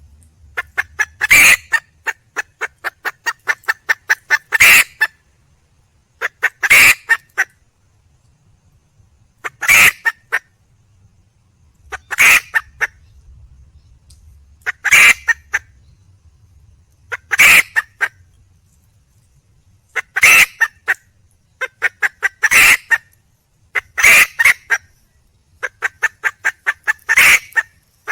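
Red junglefowl hen calling for a male: a loud sharp call every two to three seconds, each with a quick run of short clucks, repeating over and over.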